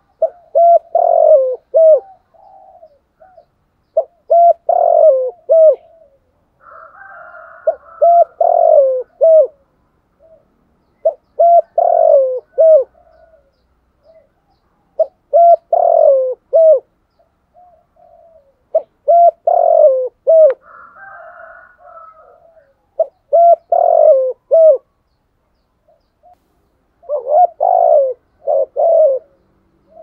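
Spotted dove cooing: a phrase of several low coos, repeated about every four seconds.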